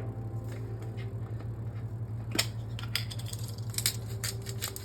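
Spice shaker being shaken over a pot: a quick run of rattling taps starting about halfway through, over a steady low hum.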